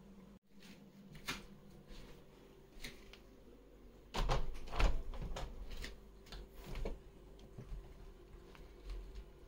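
Scattered short knocks and bumps, with a cluster of louder thumps about four to five seconds in, like a door or wooden fittings being handled.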